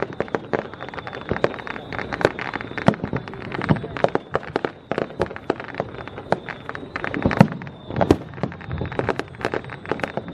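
Fireworks going off, with many sharp cracks and pops in quick, irregular succession.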